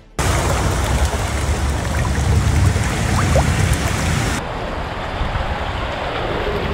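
Floodwater on a street rushing and splashing in heavy rain, a loud steady wash of water. About four seconds in it drops to a duller, quieter wash of water and rain.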